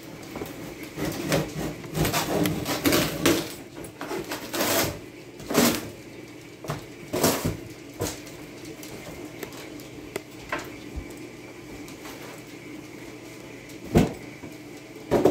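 Cardboard box and packing inserts being handled and pulled out: irregular rustling and scraping with a few sharp knocks, busiest in the first half and sparser later, with a loud knock near the end.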